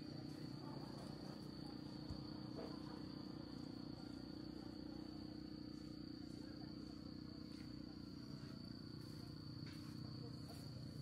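Night ambience: a steady, unbroken high-pitched trill of crickets over a low steady hum, with faint distant voices.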